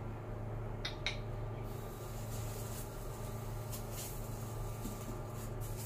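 Light handling noises of styrofoam packing pieces being lifted out of a foam tray: two sharp clicks about a second in, then faint scraping and rustling, over a steady low room hum.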